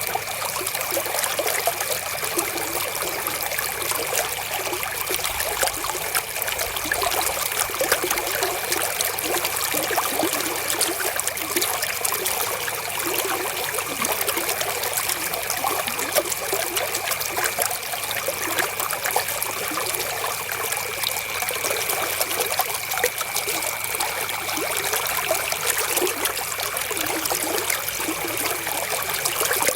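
River water flowing steadily, a dense, even trickling and splashing made of many small droplet sounds, with a faint steady high tone underneath.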